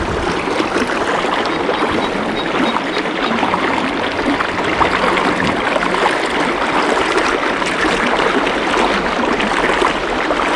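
Small river running fast over rocks and logs in a shallow riffle: a steady rushing and splashing of water.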